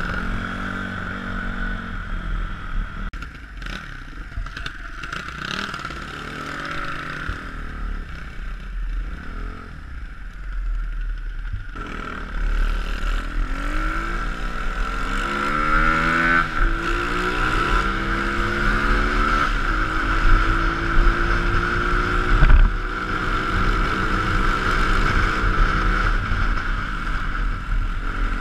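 Small single-cylinder pit bike engine under way, rising in pitch as it accelerates and stepping with gear changes partway through, with wind rumble on the helmet-mounted microphone.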